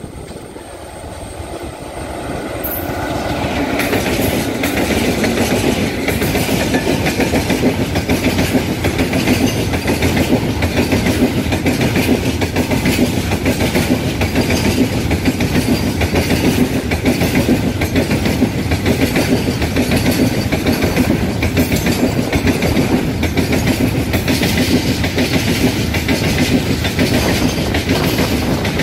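Oil tanker goods train hauled by twin WAG 7 electric locomotives passing close by. The sound swells over the first few seconds as the locomotives draw near, then settles into a steady rumble and clickety-clack of the tank wagons' wheels over the rail joints.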